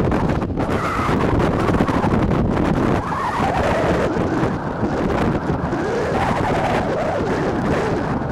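Wind buffeting the microphone in a steady rumble, with distant drawn-out shouts rising and falling in pitch over it.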